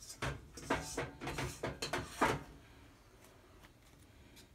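Kitchen handling noise: a quick run of knocks and scrapes over the first two seconds or so, then only a few faint clicks.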